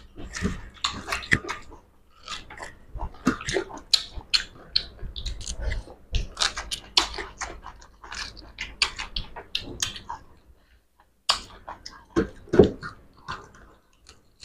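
Close-up eating sounds of juicy pomelo: wet chewing and lip smacking, a quick irregular run of short clicks with two brief lulls.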